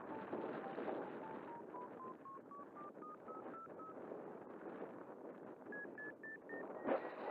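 Radio-control transmitter beeping: short beeps about four a second, stepping up in pitch over the first few seconds, pausing, then climbing again higher near the end, over steady wind noise on the microphone. A loud gust buffets the microphone about seven seconds in.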